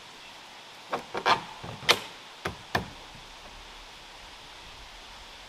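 About six sharp knocks and clicks in quick succession, the loudest near the middle, as the closed James Baroud hard-shell rooftop tent on the Jeep's roof is handled and pressed shut.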